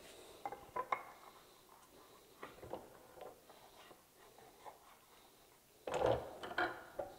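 Light knocks, taps and scrapes of a wooden board and hand tools being handled on a wooden workbench, with a louder clatter of knocks about six seconds in.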